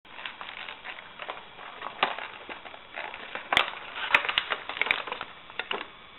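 Stiff clear plastic blister packaging crinkling and crackling as it is handled and bent to free a Tech Deck fingerboard. Irregular sharp crackles and snaps that come thickest and loudest just past the middle.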